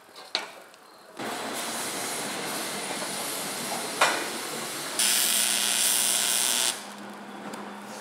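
Electric arc welding on aluminium square tubing: a steady hiss starts just over a second in, with a sharp click partway through. About five seconds in it gets louder for nearly two seconds and a low electric hum joins it, then it drops back quieter.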